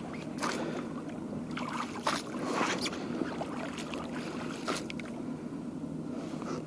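Small boat moving across the lake: water splashes and knocks against the hull at irregular moments over a steady low hum.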